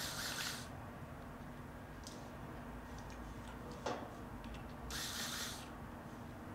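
Electric screwdriver running in two short bursts, at the very start and about five seconds in, backing out the small screws that hold a laptop hard drive in its caddy. A single sharp click comes just before the second burst, with faint small ticks of metal parts.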